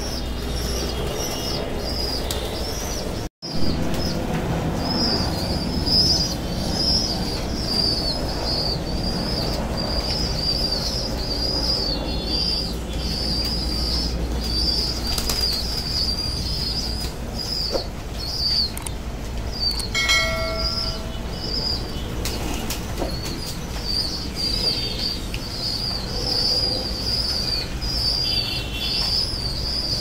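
Domestic pigeons moving about a water bowl, with wings flapping and short bird calls. A continuous high, wavering twitter runs throughout over a low steady hum.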